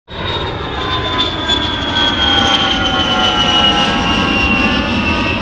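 Jet airliner's engines: a steady rumble under a high whine that slowly falls in pitch as the plane passes.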